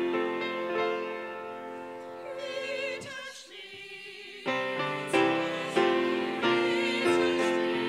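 Small mixed choir singing with grand piano accompaniment. About halfway the music drops to a softer passage of held voices with vibrato, then the piano returns with strong chords about every two-thirds of a second.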